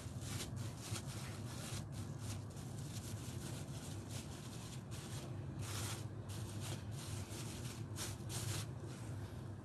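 Hands spreading and pressing sushi rice across a sheet of nori, with soft, irregular rustling and rubbing strokes, over a steady low hum.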